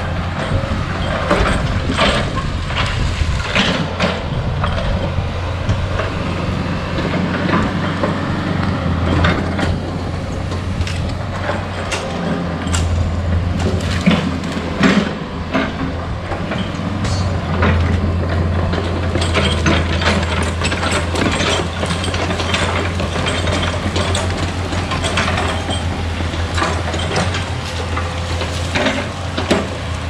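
Komatsu PC-40 mini excavator's diesel engine running steadily under load, with frequent sharp knocks and clatter from the machine working.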